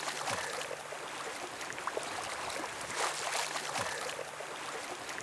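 Shallow sea water lapping and washing around a wading angler's legs: a steady rush of water with many small splashes.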